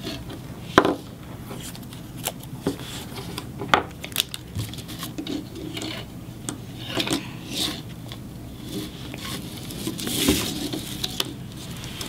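Handling noise on a wooden tabletop: scattered small clicks and taps of wires and a small DC motor being handled, with brief rubbing and rasping as clear tape is pulled off its roll.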